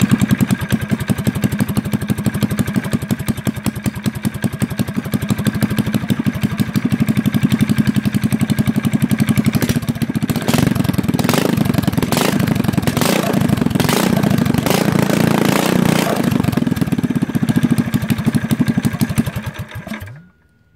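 Mini bike's small single-cylinder engine running on the stand, revved up several times partway through, then stopping abruptly near the end.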